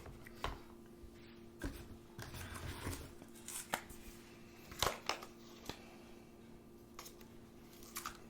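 Unboxing handling: scattered light clicks and knocks of small items and packaging being picked up and set down, with brief rustles of paper, the sharpest knock about five seconds in. A faint steady hum runs underneath.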